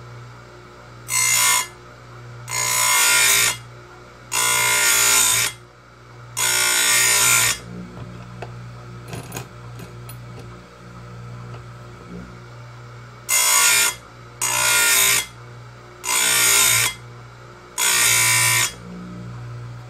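Oregon 410-120 bench chain grinder's motor running with a steady hum while its wheel grinds the cutter teeth of a 3/8 chainsaw chain, set for semi-chisel. There are eight short grinds, each under about a second and a half: four in the first half and four more after a pause of a few seconds.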